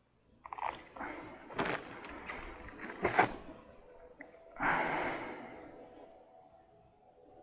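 Handling noise: a few short knocks and rustles, the loudest about three seconds in, then a breathy rush of noise about four and a half seconds in that fades over a second or so.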